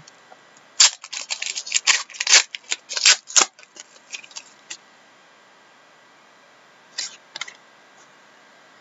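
Foil trading-card pack wrapper being torn open and crumpled by hand: a dense run of crackling for about three seconds starting a second in, then a few scattered crinkles. A short double rustle comes near the end.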